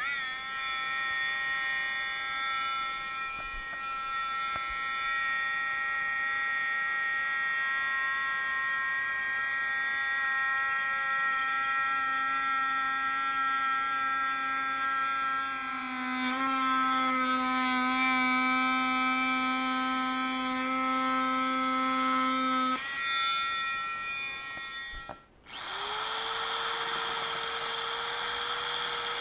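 Dremel oscillating multi-tool running with a steady high whine as it cuts the plexiglass canopy edge; its pitch shifts slightly partway through, and a lower hum joins in for a long middle stretch. Near the end a small electric belt sander (bandfile) starts up, its pitch rising briefly, then runs steadily sanding the plexiglass edge.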